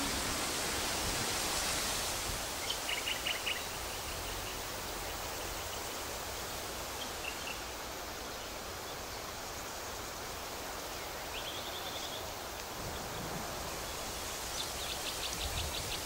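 Steady outdoor background noise in a forest, like wind or distant surf. A few short trains of rapid, high-pitched chirps come through it about three seconds in, briefly near twelve seconds, and again near the end.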